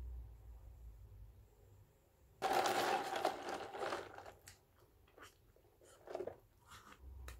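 A bite into a macaron's crisp shell: a sudden crunch about two and a half seconds in that lasts about a second and a half, followed by scattered soft chewing clicks.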